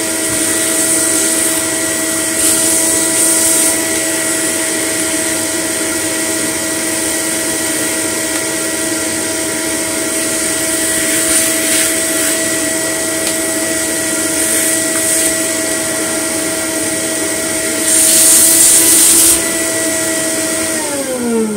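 A vacuum cleaner runs with a steady motor whine as its hose and crevice tool suck fluff out of a vacuum cleaner head, with louder hissing spells a few times, loudest near the end. Right at the end it is switched off, and the whine falls in pitch as the motor winds down.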